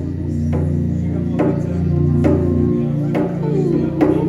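Background music with a steady beat: sustained keyboard chords over a bass line, with a sharp percussion hit about once every second.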